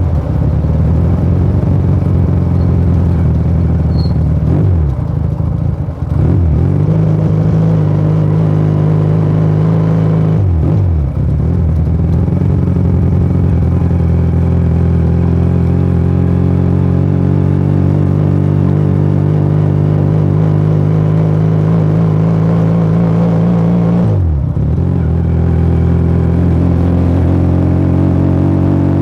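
Motomel Rider 250 motorcycle engine and exhaust running under way, a steady loud note that three times drops sharply in pitch and climbs back again.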